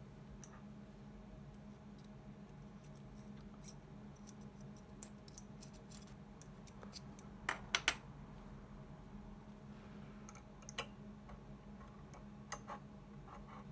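Small sharp clicks and ticks from capacitors and crocodile-clip test leads being handled to connect a capacitor to an LCR meter, over a low steady hum. The loudest is a quick run of three clicks about halfway through, and a few single clicks come near the end.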